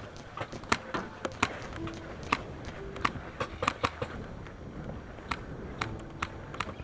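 Paintball markers firing sporadic sharp pops, single shots and short quick clusters, at irregular intervals.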